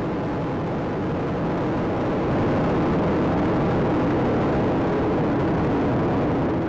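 Space Shuttle Atlantis's two solid rocket boosters and three main engines burning during ascent: a steady, rough rocket rumble, swelling slightly about two seconds in.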